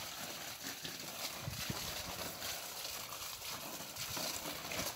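Water from an open garden hose splashing onto broad taro leaves and soil: a steady spatter, with a few soft knocks about a second and a half in.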